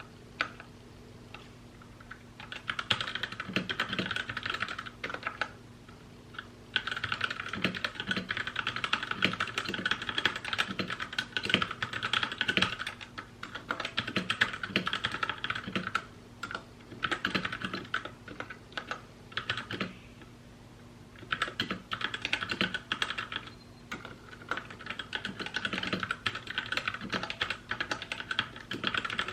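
Fast typing on a mechanical keyboard, rapid key clicks in bursts of several seconds with short pauses between them. A faint steady hum lies under it.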